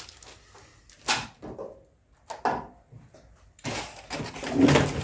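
Hard pieces being handled and set down: two sharp knocks, about one and two and a half seconds in, then a longer rattling, scraping clatter near the end. This is the plastic GAPFLAP components being laid out.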